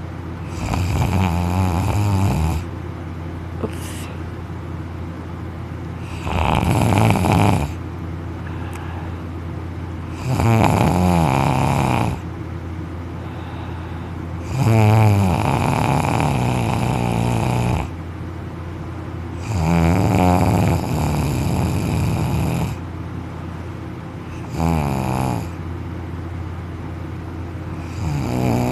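A young man snoring loudly in deep sleep, about seven rough, fluttering snores one every four to five seconds, with a steady low hum between them.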